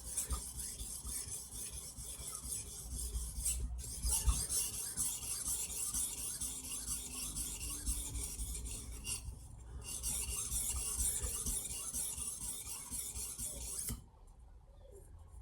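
Steel knife blade being stroked back and forth across the 1200-grit side of a diamond sharpening plate: a steady scraping rasp with two short pauses, stopping about a second before the end.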